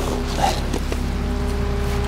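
Skid steer engine running steadily, with one brief sharp sound about half a second in.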